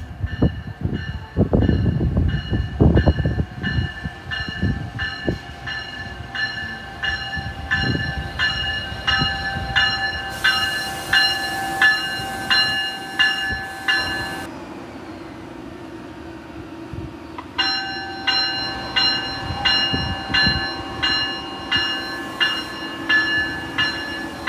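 Amtrak ACS-64 electric locomotive arriving at a station platform, its bell ringing steadily at about two strokes a second. The bell stops for about three seconds past the middle, then starts again. Low rumbling thuds from the train fill the first few seconds.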